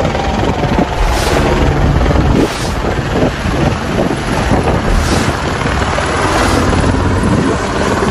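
Helicopter passing low overhead, its main rotor beating fast and evenly over the engine noise. Wind buffets the microphone in gusts.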